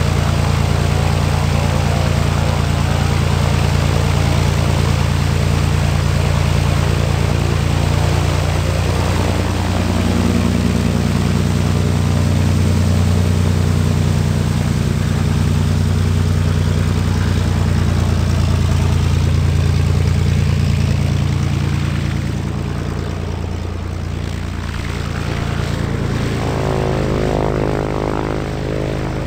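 GippsAero GA8 TC-320 Airvan's turbocharged Lycoming six-cylinder engine and propeller running steadily at low power as the aircraft taxis. It grows somewhat quieter about three-quarters of the way in, and its tone shifts near the end as the aircraft moves off.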